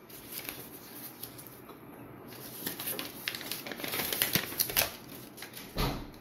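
Handling noises: soft rustling and a string of light clicks and taps, with a dull thump near the end.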